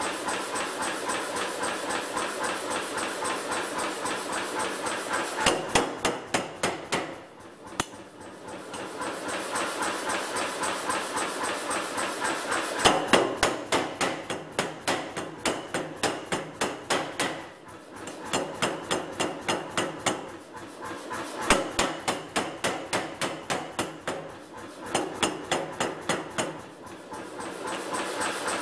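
Air power hammer working hot steel on a tong-forging jig: runs of quick, evenly spaced blows of the top die, stopping briefly several times as the piece is moved, with the hammer's steady running noise underneath.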